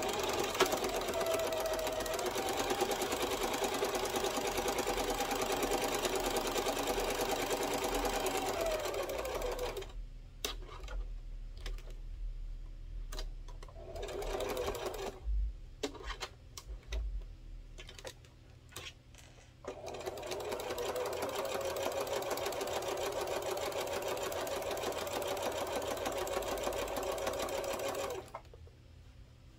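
Singer Classic domestic sewing machine top stitching: it runs steadily for about ten seconds, slows with a falling pitch and stops, then after a pause of about ten seconds filled with light clicks it sews again steadily until it stops near the end.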